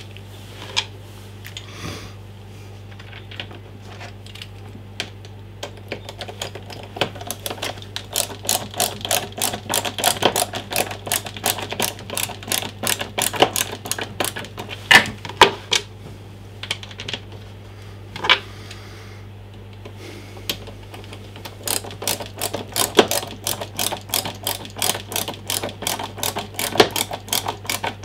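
Hand screwdriver driving screws into a leaf blower's plastic tube, giving rapid even clicks, about four a second, in two long runs with a pause in the middle. There are a few louder knocks on the plastic.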